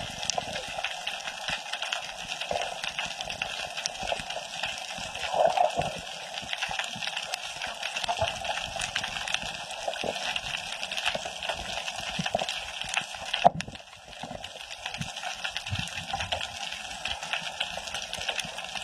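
Underwater ambience: a steady water hiss with dense faint crackling and clicking. There is one sharp knock about thirteen and a half seconds in, after which it goes briefly quieter.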